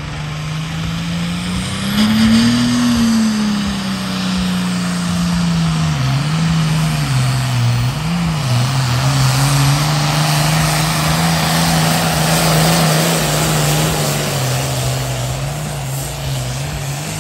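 International Harvester pulling tractor's diesel engine running hard under load as it drags the sled. The engine note is steady and loud, rises briefly about two seconds in, and dips twice midway through.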